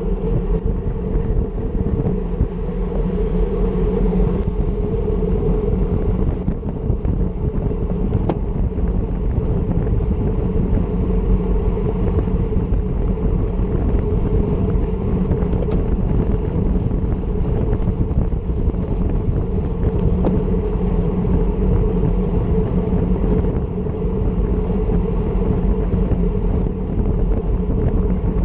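Wind rumbling over the microphone of a handlebar-mounted action camera on a road bike at about 25 mph, with road and tyre noise under it. It is steady, with no clear breaks.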